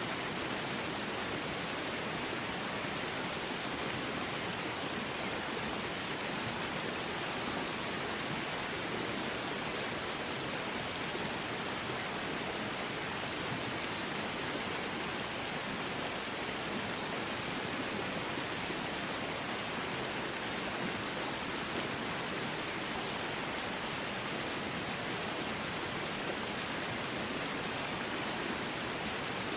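Waterfall rushing, a steady, unbroken wash of water noise.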